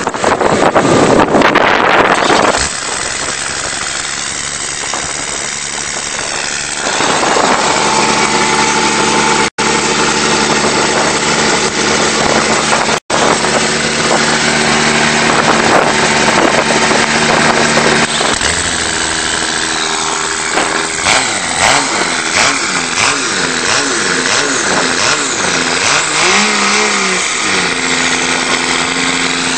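Cummins turbodiesel pickup engine heard close at its tailpipe. It opens with a loud rush of noise for a couple of seconds, then idles steadily, and from about two-thirds of the way in it is revved up and down several times.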